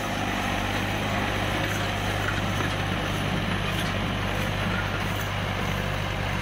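Al-Ghazi 65 hp diesel tractor engine running steadily under load while pulling a disc harrow through dry soil.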